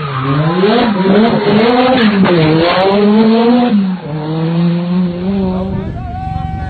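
Rally car engine revving hard, its pitch climbing and dropping several times, then holding a steadier note in the last couple of seconds.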